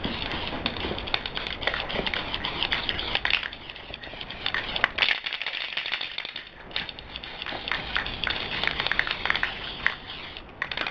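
Krylon aerosol spray-paint can hissing in spitting, crackling spurts as it sprays; the can is running low on paint. The spray stops for about a second and a half around the middle and briefly near the end.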